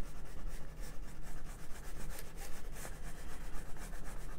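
Wax crayon rubbed hard across paper in quick repeated strokes, a scratchy rubbing sound.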